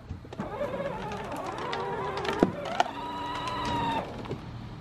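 Electric drive motor of a battery-powered ride-on toy tractor whining as it drives forward over grass. It stops about four seconds in, with a sharp click about halfway through.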